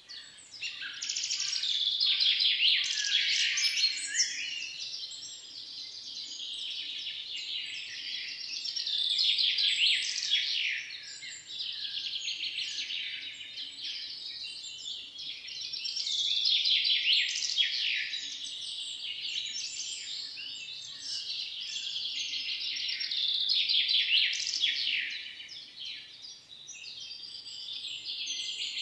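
Many songbirds chirping and twittering at once, their calls overlapping in a dense chorus that swells louder about every seven seconds.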